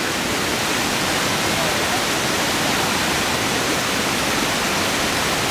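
Whitewater of Clavey Falls, a Class V rapid, rushing over and around boulders as a steady, even roar of water.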